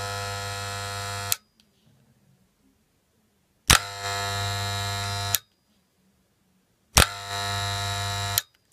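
Moser 1400 mains-powered hair clipper switched on and off in short runs: it is already buzzing and stops about a second in, then starts twice more. Each start opens with a sharp click before the steady buzz settles in, a start-up click that is normal for these clippers.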